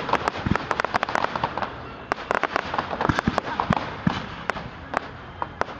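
Aerial fireworks going off: dense volleys of sharp bangs and crackling pops, thinning out near the end.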